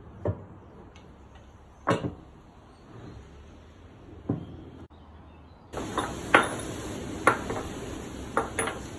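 Rusty iron parts of a dismantled antique grain scale being set down by hand on a wooden workbench: separate metal knocks and clanks, a few seconds apart at first, then closer together in the second half.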